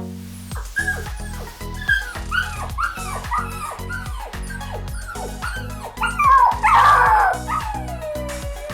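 A dog yelping in a run of short, high, falling yips, about two a second, turning louder and rougher about six seconds in, then one long falling whine, over background music.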